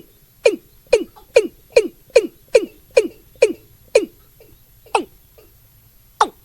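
Male watercock calling: a series of short, sharp notes, each falling in pitch, about two to three a second, slowing to a few widely spaced notes in the last couple of seconds.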